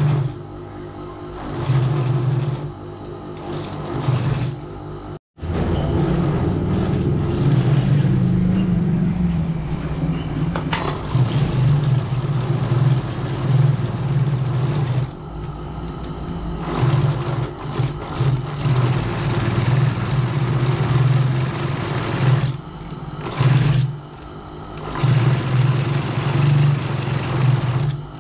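Industrial sewing machine stitching leather, running in stop-start bursts of a few seconds each, with a lower hum carrying on through the pauses between runs. The sound cuts out for a moment about five seconds in.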